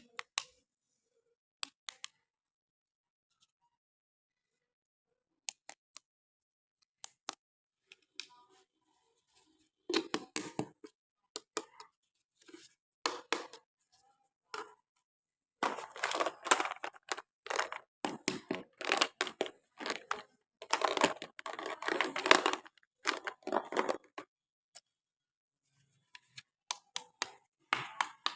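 Toy packaging being handled and opened: scattered sharp clicks, then bursts of tearing and crinkling that start about ten seconds in, grow dense in the middle and thin out near the end.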